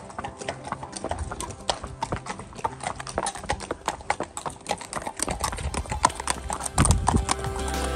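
Horses' hooves clip-clopping at a walk on a paved road, several horses' footfalls overlapping. A low rumble joins in the last few seconds.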